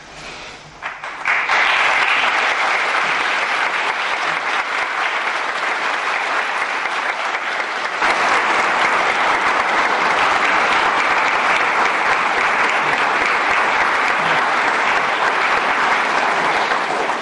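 Congregation applauding, starting about a second in and going on steadily. It gets a little louder about halfway through.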